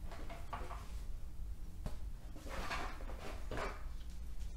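Soft handling noises of board-game parts in a cardboard box: light scrapes and rustles, with a small click about two seconds in.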